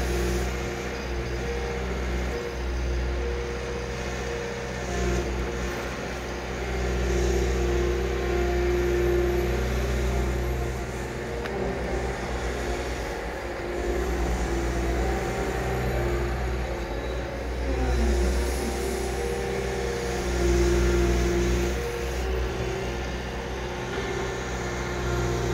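Liebherr R 936 crawler excavator running under load, its diesel engine and hydraulics giving a steady drone with a strong low rumble that swells and eases every few seconds as it digs and swings.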